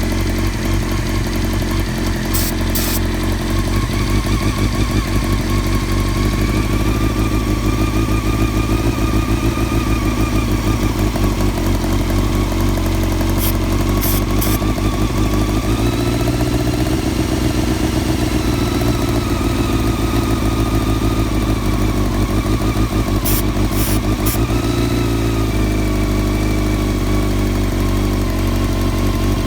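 1999 Honda CBR600 F4's carbureted inline-four idling unevenly, the idle speed swelling up about halfway through and again near the end before settling back. The owner takes the unsteady idle for a vacuum leak that remains despite rebuilt carbs, new intake boots and new carb balancing lines.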